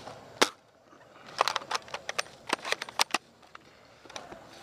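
Sharp clicks and cracks of airsoft gunfire and impacts: one loud crack about half a second in, then a quick, irregular string of about ten more over the next two seconds, and a few fainter ones near the end.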